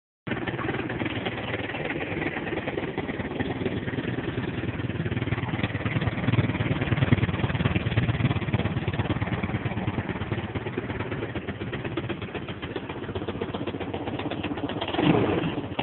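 A 250 cc sport ATV's engine running steadily, with a brief shift in pitch near the end.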